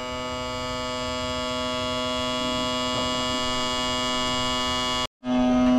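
Steady motor hum made of a few even tones, growing slowly louder, with a brief complete dropout about five seconds in.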